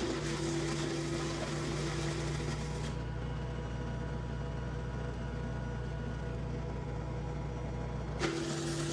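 Kubota L3560 tractor's diesel engine driving a WoodMaxx WM-8M PTO wood chipper, a steady mechanical drone with a constant hum. The hiss above it drops away about three seconds in and comes back near the end.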